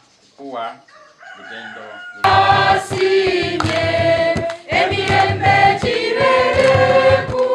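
Congregation singing a hymn together, accompanied by steady beats on a hand drum, starting abruptly about two seconds in. Before it, a man's voice speaks briefly.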